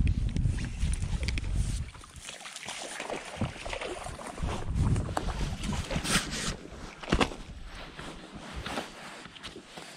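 A hooked bass splashing at the water's surface beside a fishing boat and being swung aboard, with scattered clicks and a sharp knock about seven seconds in. A heavy low rumble, like wind on the microphone, fills the first two seconds.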